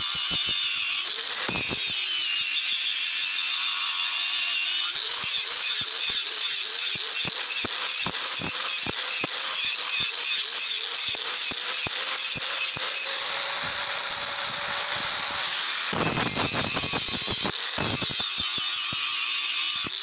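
Angle grinder's abrasive disc grinding a steel knife blade, throwing sparks. The motor whine sags briefly near the start as the disc bites, then holds steady under a hiss, with a fast clicking chatter of the disc against the blade through most of it.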